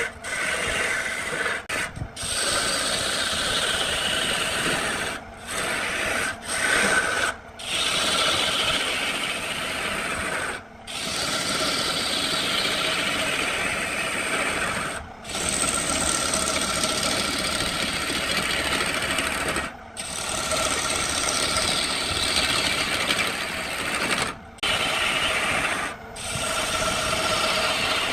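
Wood lathe spinning a cedar blank as a turning chisel cuts into it: a rough, steady shearing of wood with a high whine, broken several times by brief gaps.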